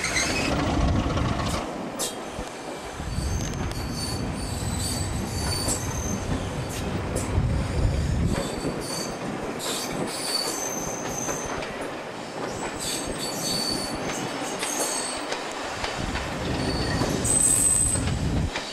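Train's steel wheels squealing on curved track, a string of short high-pitched squeals over a steady rumble, with clicking as the wheels pass over rail joints.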